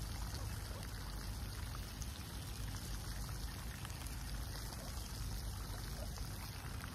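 Steady wind noise on the microphone: an even low rumble with a faint hiss over it, with no distinct splash or reel sound standing out.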